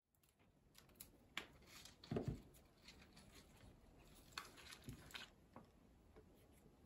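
Faint handling noises of flower stems going into a plastic bottle: scattered light clicks and rustles, with a louder thump about two seconds in.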